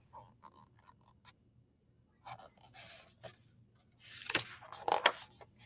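Light rustling and scraping of a hardcover picture book's pages and cover being handled, louder for about a second near the end.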